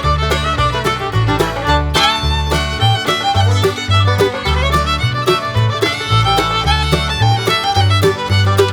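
Background music: upbeat fiddle-led bluegrass tune with a bouncing alternating bass.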